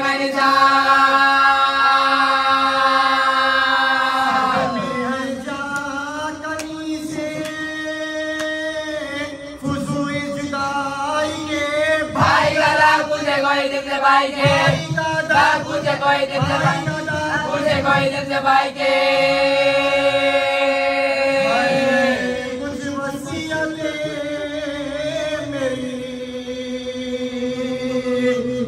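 Voices chanting a noha, a Shia mourning elegy, in long melodic held notes over a steady lower note.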